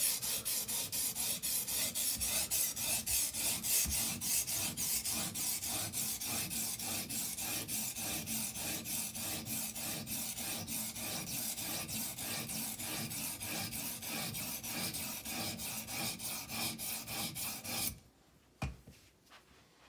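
A 220-grit stone on an Edge Pro Apex guide arm scraping along the steel edge of a chef's knife in a fast, even run of strokes as the edge is sharpened. The strokes stop about two seconds before the end.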